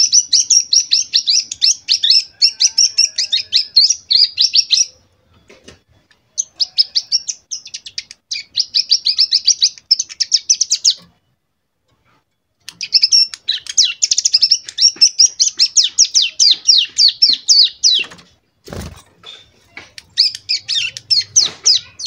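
A young ciblek gunung (cigun, a prinia) sings the rapid, machine-gun-like 'bren' trill in four long bursts of quick, high repeated notes, with short pauses between them. This is a two-month-old bird still learning the bar-winged prinia (ciblek) 'AK47' trill. A low thump of the bird hopping or flapping in the cage comes shortly before the last burst.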